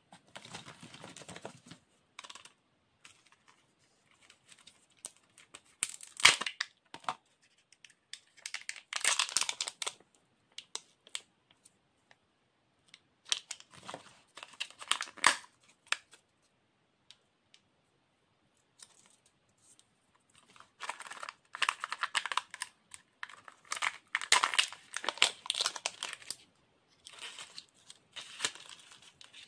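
Kinder Joy plastic egg capsules being opened by hand: foil seals and plastic wrappers crinkle and tear, with a few sharp plastic clicks. The sounds come in bursts a few seconds long, separated by short pauses, and the loudest click falls about six seconds in.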